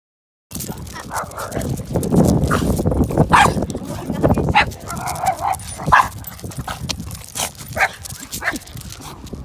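Small Pekingese–poodle mix dog barking in a string of short, sharp barks, about seven over several seconds: reactive barking at another dog passing on a walk.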